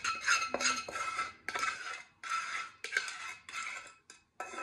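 Wooden spatula scraping the inside of a metal saucepan in about eight short strokes, the pan ringing with each stroke, as the last of the sweetened milk is scraped out.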